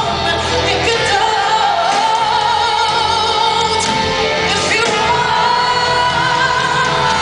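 A female singer's voice performing a ballad live over band backing, holding long notes with vibrato.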